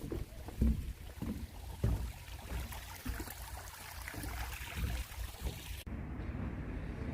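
Outdoor ambience with wind buffeting the microphone in irregular low rumbles and thumps over a steady hiss. About six seconds in it cuts abruptly to a duller, steadier low background rumble.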